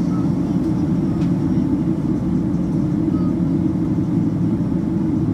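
Steady low rumble of engine and airflow noise heard inside the cabin of a Boeing 767-300ER airliner, unchanging throughout.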